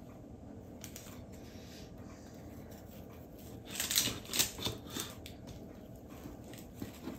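A serrated knife sawing through a sugar-glazed poppy seed cake: faint at first, then a short run of crisp rasping strokes about four seconds in as the blade cuts through the set glaze.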